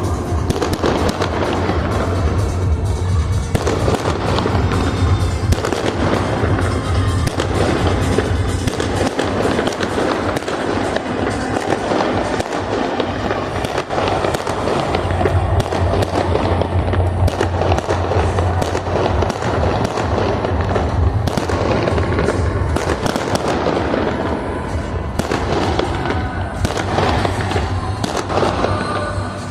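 Fireworks display going off continuously: a dense run of bangs and crackles with no pause, over music playing.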